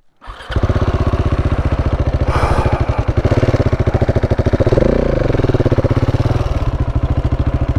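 KTM 690's single-cylinder engine running in third gear with a quick, even pulse, setting in about half a second in; the rider judges third gear a poor choice here.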